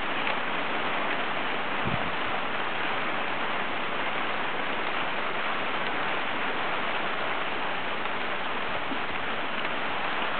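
Hail falling steadily, a dense even patter of hailstones hitting the ground and grass.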